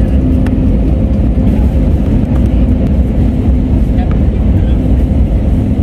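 Airbus A320 cabin noise by the wing on final approach: a loud, steady low rumble of engines and airflow with a steady hum over it.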